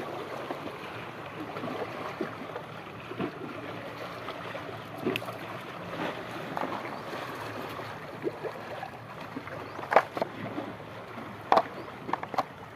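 Small sea waves washing steadily over shoreline rocks, with scattered short clicks and rustles of handling, the sharpest about ten seconds in and a few more near the end.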